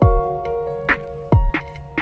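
Background music: sustained synth chords over a beat of deep kick-drum hits and sharper percussion.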